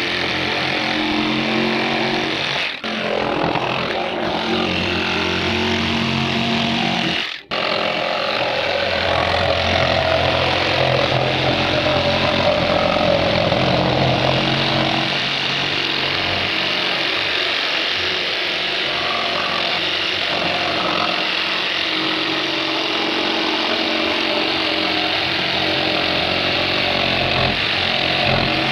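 Ryobi jigsaw running, its motor and reciprocating blade going steadily. The sound drops out briefly twice in the first eight seconds.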